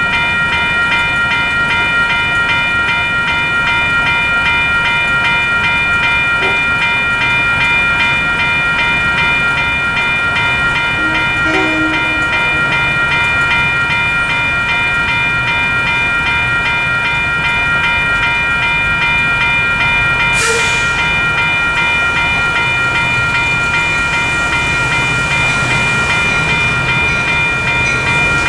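A WCH Type 3 electronic railroad-crossing bell rings steadily with rapid, evenly repeating strikes, warning that the crossing is active. In the second half a low rumble grows underneath as the commuter train approaches. There is one sharp click about twenty seconds in.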